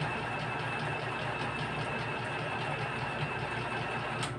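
Small electric sewing machine running steadily with a thin whine and light regular ticking of the stitching, stopping with a click just before the end.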